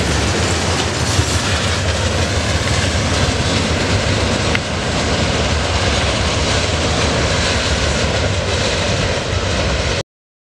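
Steady rumbling roar of a freight train's steel wheels on the rails as the last loaded steel-coil cars pass and move away, with one sharp tick about halfway through. The sound cuts off abruptly near the end.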